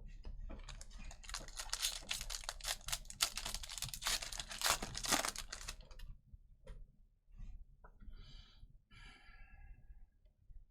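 Foil wrapper of a trading-card pack being torn open and crinkled: a dense crackling that runs for about six seconds and then stops. A few faint clicks and short high squeaks follow near the end.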